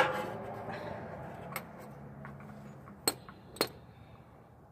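Metal hand tools clinking: four sharp metallic clinks spread out, the first the loudest, as sockets and a ratchet are handled.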